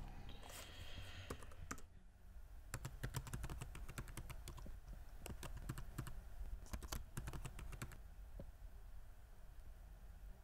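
Typing on a laptop keyboard: quick runs of key clicks in several bursts, thinning to a few single taps near the end.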